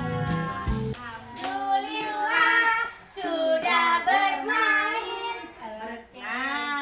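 Young children singing together, with a recorded music track's low accompaniment underneath that stops about a second in.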